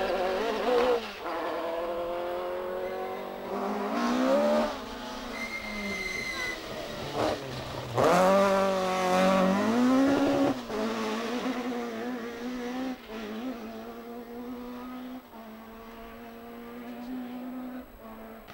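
Rally cars accelerating along a stage: engines revving up and down through gear changes, loudest as one car passes about eight seconds in, then its engine note fading as it drives away.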